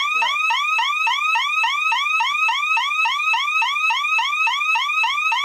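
Burglar-alarm siren of a DSC PC1515 security system sounding a fast, repeating rising whoop, about four sweeps a second: the intrusion alarm, set off because the door was opened while armed and the entry delay ran out without the code being entered. It cuts off suddenly near the end as the system is disarmed at the keypad.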